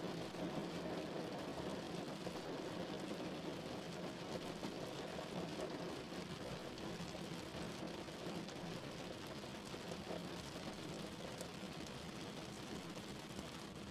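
Car engine idling steadily: an even, faint hum with hiss.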